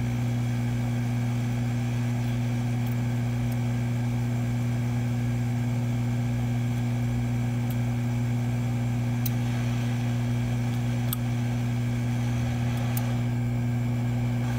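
Steady hum of a hot air rework station's blower running while it heats the board, with a few faint ticks of a blade scraping the underfill.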